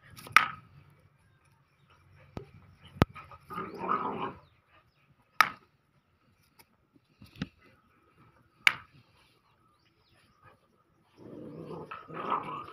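Pointer puppies play-fighting and making vocal sounds: a few short, sharp sounds spread through, and longer stretches of noise about four seconds in and again near the end.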